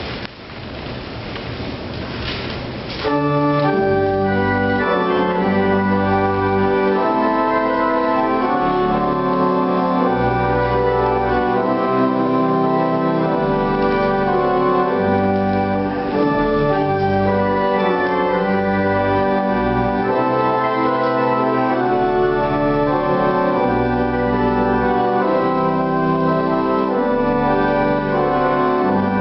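Organ playing slow, sustained chords over long, deep bass notes, coming in loudly about three seconds in after a brief rustling noise.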